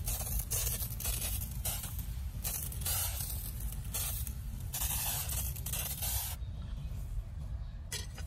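Dry grass rustling in a run of short, hissing bursts, a few each second, with a last brief burst near the end, over a steady low rumble.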